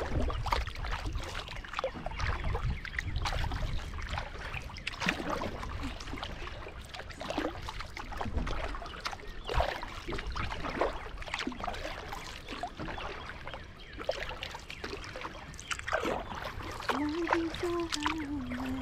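Kayak paddle strokes on a lake, splashes and drips at irregular intervals about every second, over a steady low rumble of strong wind on the microphone.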